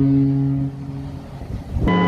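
Cruise ship horn sounding notes of a tune: a deep note is held until about 0.7 s in, then dies away with a lingering echo, and a new, higher note starts abruptly near the end.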